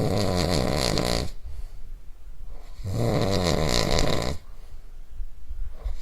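A person snoring loudly, a rattling snore about every three seconds: one running at the start, one about three seconds in, and another beginning near the end. This is the snoring of sleep-disordered breathing, with the upper-airway muscles relaxing too much in sleep.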